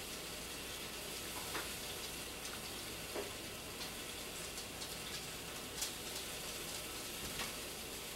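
Whisk stirring a cheese sauce in an enamelled cast-iron pot: a few soft scattered taps over a steady low hiss of cooking.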